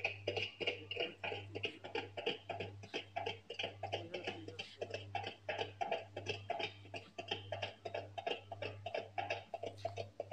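Music with a quick, even beat, about four to five pulses a second, over a steady low hum.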